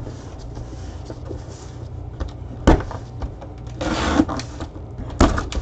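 A cardboard box being handled and opened by hand: a sharp knock about two and a half seconds in, a short rustling scrape around four seconds, and another knock near the end, over a low steady hum.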